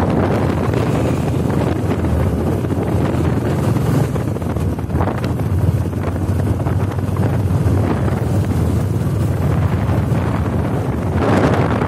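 Steady wind noise buffeting the microphone on a moving motorcycle, with the bike's engine running low underneath; the wind swells near the end.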